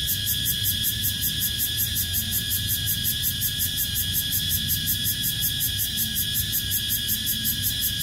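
Chorus of night-singing insects, called night cicadas by the uploader: a steady, continuous shrill with an even, fast pulsing several times a second, over a low rumble.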